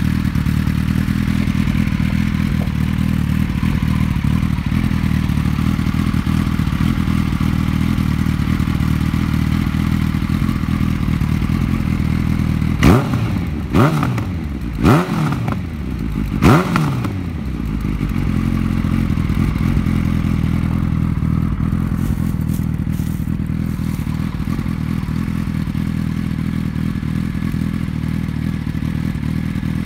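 Suzuki Hayabusa's inline-four idling through a cheap eBay replica Akrapovic shorty slip-on exhaust with its baffle removed. About halfway through it gets four quick throttle blips, each revving up and dropping back, then settles to idle again.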